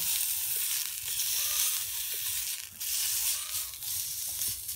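Cooking oil and meat sizzling steadily on the heating plate of a plastic-pipe heat-fusion welder, running at about 300 degrees, as more oil is poured on.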